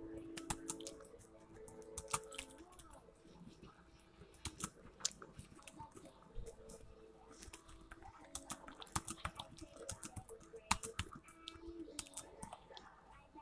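Computer keyboard keys clicking in an irregular run as someone types, with faint music underneath.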